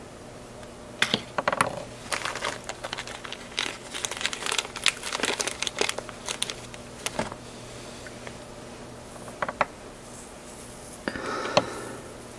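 Crinkling of a plastic packet of fly-tying dubbing being handled, in irregular crackly bursts through the first half, a few more later and a last burst near the end.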